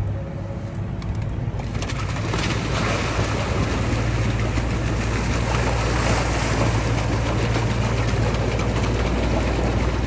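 Off-road vehicle engine running steadily with a low hum, joined about two seconds in by a louder, steady rushing noise that holds to the end.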